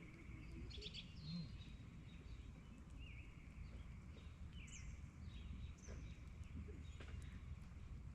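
Birds calling faintly outdoors: a few short chirps and whistled notes, spaced out, over a low, steady background rumble.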